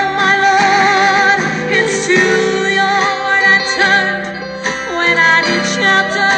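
Gospel song: a woman's voice holds long notes with vibrato over instrumental accompaniment.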